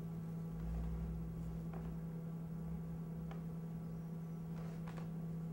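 Steady electrical hum, one low even tone with fainter overtones above it, with a low rumble in the first couple of seconds and a few faint clicks.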